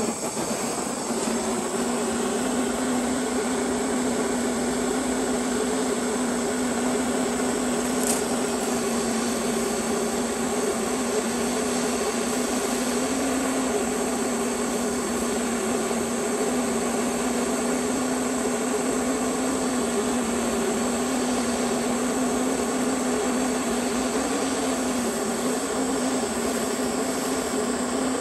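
MAP gas torch flame burning steadily with a constant rushing hiss and a low hum while it heats a small brass aeolipile. A brief high-pitched sound is heard about eight seconds in.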